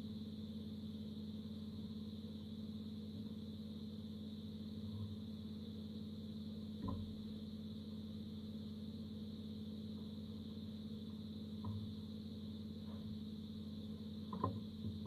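Steady electrical hum with a faint high hiss, from the powered repair bench. A few faint clicks as multimeter probes touch the motherboard come about seven seconds in, around twelve seconds in, and loudest near the end.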